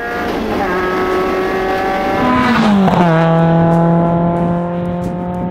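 Mazda MX-5 race car's four-cylinder engine running hard at speed, a high steady note that drops sharply in pitch about three seconds in and then holds at a lower steady note.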